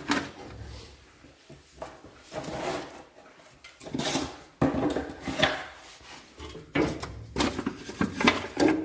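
Wooden offcuts being laid into a stove's firebox by hand: irregular clunks and clatter of wood knocking on wood and on the stove, coming in several bunches.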